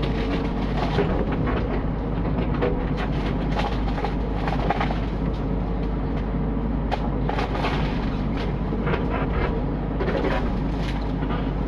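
Mini excavator's engine running steadily under work, with frequent short knocks and clanks from the machine and the wood it is handling.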